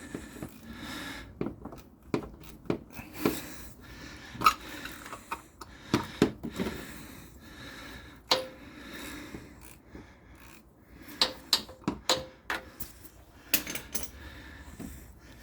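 Irregular metal clinks and knocks from a ratchet, socket extension and cap-style oil filter wrench being fitted onto a tight oil filter and worked at it to break it loose.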